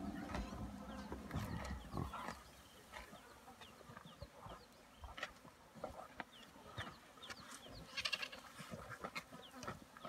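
Spotted hyenas and white-backed vultures feeding on a giraffe carcass: scattered crunching and tearing, with short high squeaks and a harsh vulture screech about eight seconds in. A low rumble fades out over the first two seconds.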